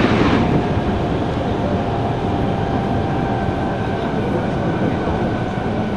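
A 66 series subway train running at speed, heard from inside the car. A train passing on the next track rushes by and ends about half a second in, leaving the steady rumble of the running train with a faint steady whine.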